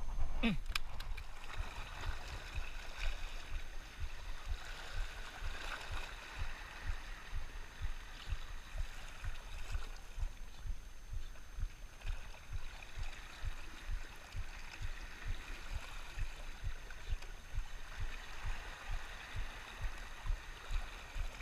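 Small waves washing and lapping against shoreline rocks, with soft low thumps about two or three a second and a short falling sweep about half a second in.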